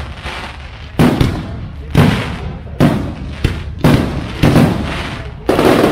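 Aerial firework shells bursting overhead, about seven bangs at roughly one a second, each trailing off in an echo.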